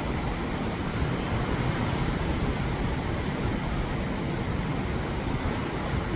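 Steady rushing noise of ocean surf, mixed with wind buffeting the microphone.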